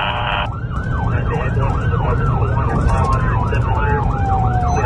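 Emergency vehicle siren in a fast yelp, sweeping up and down about three times a second, heard from inside a moving response vehicle over engine and road rumble. A second, slower siren tone falls steadily through the middle and starts rising again near the end.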